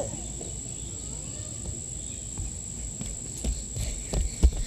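Outdoor ambience: a steady high-pitched insect drone over a low rumble of wind on the microphone. From about three seconds in, a run of knocks and thumps grows louder as the pole-mounted camera is handled on the asphalt roof shingles.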